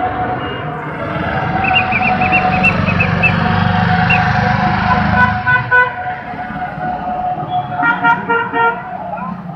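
Road traffic: engine rumble with vehicle horns, a quick run of short high toots about two seconds in and longer honks around five and eight seconds, over a steady high tone.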